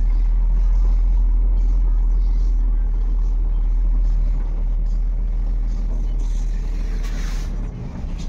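Scania truck's diesel engine running at low revs, heard from inside the cab as a steady low drone while the truck creeps forward. A brief hiss comes about seven seconds in, and the engine note drops.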